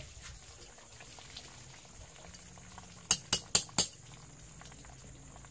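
Four quick, sharp clicks in a row a little after three seconds in, over a faint steady hum.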